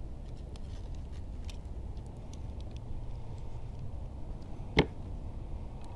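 Steady low wind rumble on the microphone over open water, with a few faint ticks and one sharp click or knock a little before the end.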